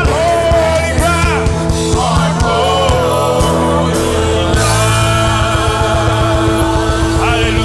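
Live worship band playing a song at full volume, with singing over a steady beat and sustained keyboard and bass lines.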